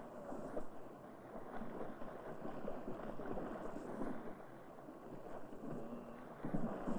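Water splashing and sloshing as several people wade through a shallow river, in an uneven, continuous rush.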